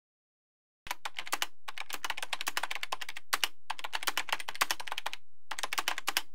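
Computer keyboard typing: rapid runs of clicking keystrokes, four runs broken by short pauses.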